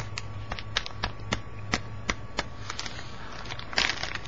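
Thin plastic bag crinkling as it is handled: irregular sharp crackles, with a denser burst near the end, over a low steady hum.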